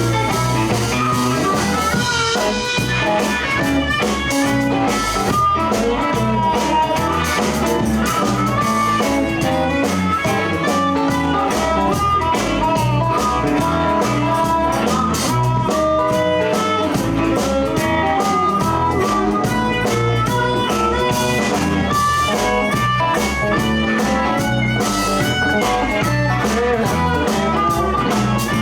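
Live blues band playing an instrumental break with electric guitar, bass and drums under a lead line of quick single notes.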